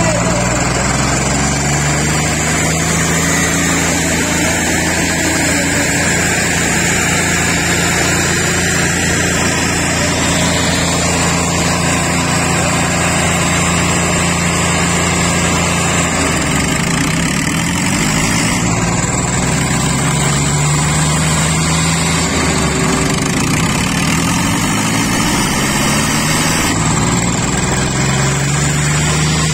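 Tractor diesel engines, one of them a Swaraj 855 FE's, running hard under full load as the two tractors pull against each other. The engine note holds steady, then sags and climbs back a few times in the second half as the load shifts.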